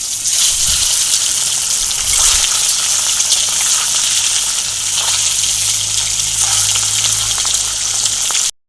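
Whole boiled eggs frying in hot mustard oil in a kadai: a loud, steady sizzle with light crackling, which cuts off suddenly near the end.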